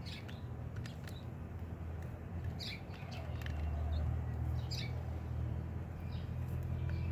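Sparrows chirping: a handful of short, high chirps spread through, with a few faint clicks, over a steady low rumble.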